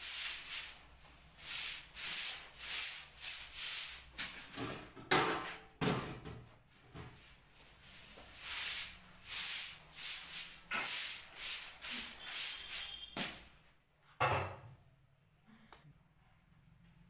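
Short-handled grass broom sweeping a bare kitchen floor in brisk swishing strokes, about two a second, with a short lull near the middle; the sweeping stops about thirteen seconds in and is followed by a single knock.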